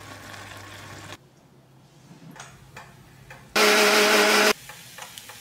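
An electric mixer grinder runs for about a second, a steady motor whine, while a hand holds its steel jar's lid down. Before it, a pan of curry sauce simmers for the first second, followed by a few light clicks of handling.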